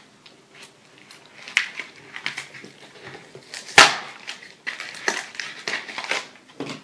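Foil wrapper of a Pokémon trading card booster pack crinkling in the hands as it is torn open, a run of short crackles with one loud sharp crackle a little under four seconds in.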